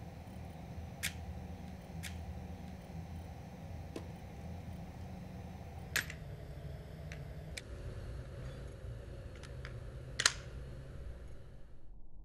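Light metallic clicks of a Webley Mark VI top-break revolver being loaded and its action worked, with sharper snaps about six and ten seconds in, over a steady low hum.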